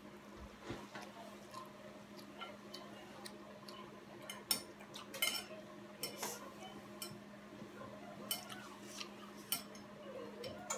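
Chopsticks clicking and scraping against a ceramic plate as noodles are picked up, in scattered light clicks, a few louder ones about halfway through. A steady low hum runs underneath.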